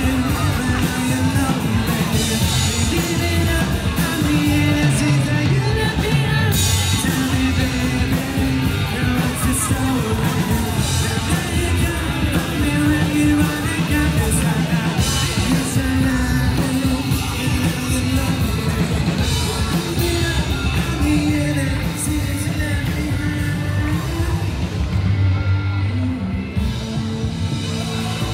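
Live rock band playing on an outdoor stage: electric guitars and drums with a sung vocal, heard from the crowd. A little fainter near the end.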